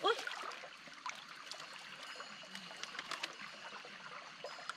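Water trickling and dripping in a shallow stream as a woven bamboo basket is lifted out of it, with small scattered splashes and clicks. A brief rising sound at the very start is the loudest moment.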